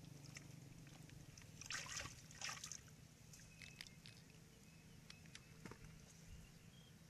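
Two brief splashes about two seconds in as a fish is grabbed from the shallow water in a pitfall trap, followed by a few faint clicks and rustles.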